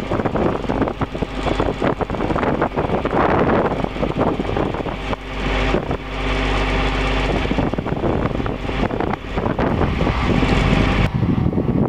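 John Deere 672A motor grader's diesel engine running, heard from inside the cab, with a steadier engine tone standing out around the middle.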